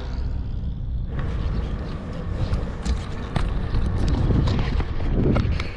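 Low wind rumble on the microphone of a bicycle riding uphill, with scattered sharp clicks and rattles.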